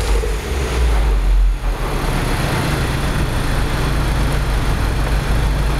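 Mini Cooper S R56's turbocharged 1.6-litre four-cylinder through its stock exhaust, falling back from a rev and settling to a steady idle about a second and a half in.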